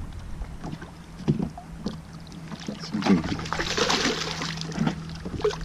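A hooked bass splashing at the water's surface beside a kayak, loudest about three seconds in, with small knocks and a faint steady hum.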